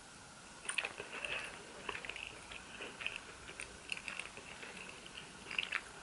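Chewing a sweet fried dumpling cake (Johnny cake) close to the microphone: irregular wet, crackly mouth sounds that start about a second in.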